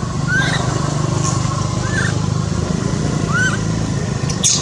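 Three short, arched high chirps from an animal, about a second and a half apart, over a steady low hum, with a brief hissy burst near the end.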